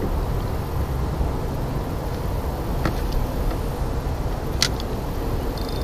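Steady low wind rumble on the microphone, with a couple of short sharp clicks about three and four and a half seconds in.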